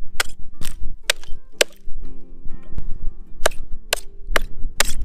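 Hatchet chopping into a log on a chopping block: about nine sharp wooden blows at roughly two a second, with a short pause just after two seconds in.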